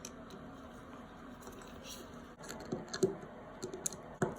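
A faint steady hum, then four or five light clicks and taps in the second half of small metal faucet parts and a screw being handled during reassembly.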